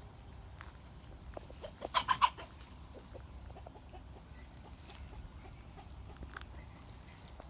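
Four quick, pitched animal calls in a tight cluster about two seconds in, over faint scattered clicks.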